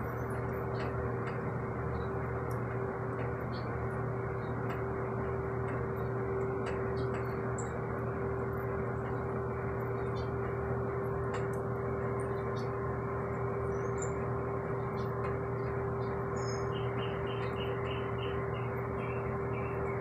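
A steady mechanical hum with a constant low tone runs underneath, while small birds chirp faintly now and then. Near the end comes a quick run of about ten short chirps, about three a second.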